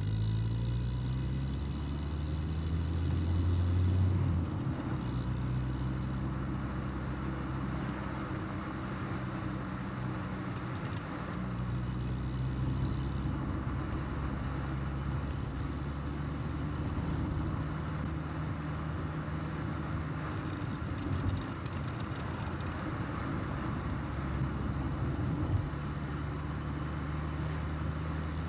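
1984 Volkswagen Golf Mk2's carburetted petrol engine pulling the car along the road, with tyre and road noise. The revs climb for the first few seconds, drop about four seconds in, then settle to a steady cruise.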